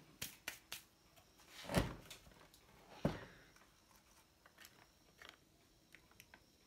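Objects being handled and set down on a workbench. A few light knocks and clicks come in the first second, a louder half-second handling sound near two seconds in, and one sharp knock about three seconds in, then faint ticks.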